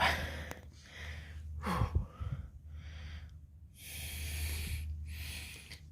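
A man breathing hard from physical effort, with several loud breaths and a short falling grunt about two seconds in.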